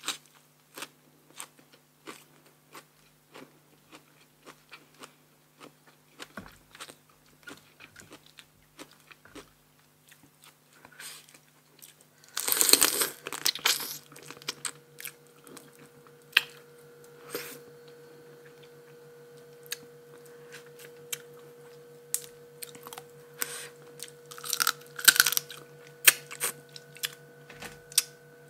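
Close-miked eating: a person biting, crunching and chewing spicy blue-crab papaya salad with crisp raw vegetables, in a string of sharp crunches with two louder bouts of dense crunching, about halfway and near the end. A faint steady hum runs underneath from about halfway.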